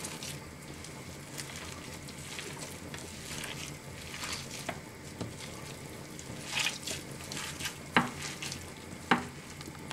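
Hand kneading raw minced meat with shredded cabbage, eggs and flour in a glass baking dish: irregular wet squishing and crackling, with two sharp knocks about 8 and 9 seconds in.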